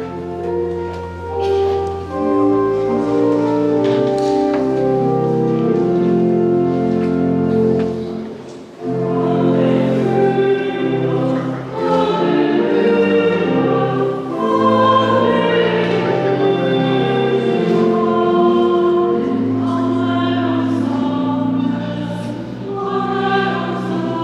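A choir singing slow, long held chords over a low sustained bass, with a short break about eight seconds in.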